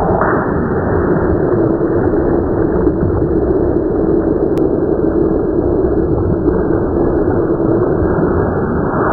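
A loud, steady, muffled rumble with no high end.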